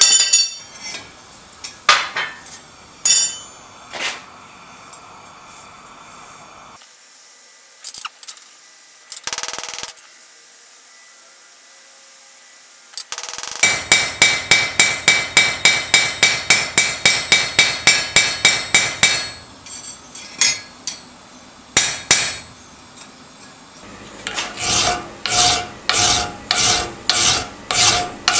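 Hammer blows on the steel pivot rivet of forged fireplace tongs lying on an anvil: a few single blows, then a fast, even run of about four blows a second lasting some five seconds. Near the end comes a file rasping back and forth on the steel tong jaws, about two strokes a second.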